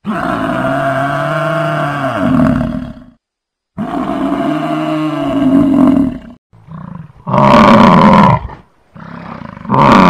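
Buffalo bellowing: two long, low calls of about three seconds each, then three shorter calls in quick succession.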